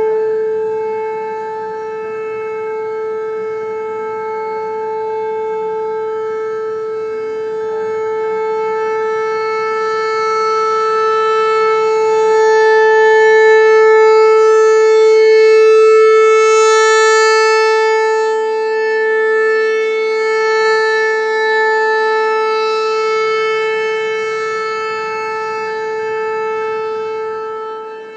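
American Signal T-128 rotating electronic outdoor warning siren sounding a steady alert tone. Its loudness slowly swells to a peak about halfway through, then fades again.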